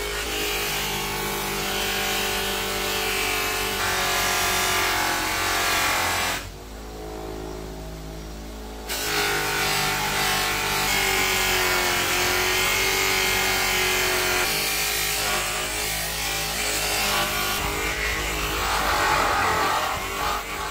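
Electric bench grinder running steadily with a buffing wheel, as a bar of polishing compound and then the steel kunai's blade and ring are pressed against the spinning wheel. The sound drops for a couple of seconds about a third of the way in.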